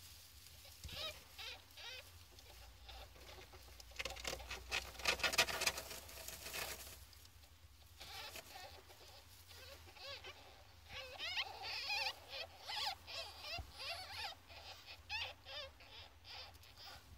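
Fourteen-day-old ferret kits squeaking: high, wavering squeaks, a dense run of them about four seconds in, then a string of short separate squeaks through the second half.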